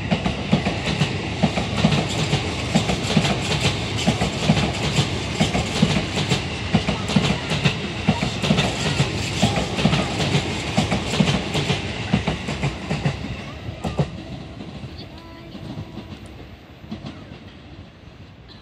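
Sotetsu 12000 series electric train passing close by: a low rumble with a quick, uneven run of wheel clacks over the rail joints. The clacking stops about two-thirds of the way through, and the rumble fades away as the train leaves.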